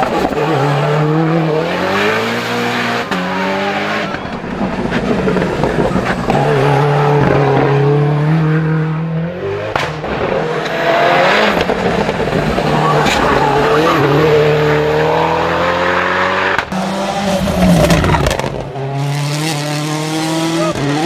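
Ford Fiesta WRC rally car's turbocharged four-cylinder engine at full throttle on a hill climb, its pitch rising and dropping again and again as it shifts through the gears and brakes for the bends.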